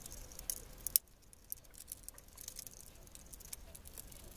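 Faint small clicks and scrapes of a wire end and screwdriver being worked into a terminal on a plastic switch board, a couple of sharper ticks within the first second.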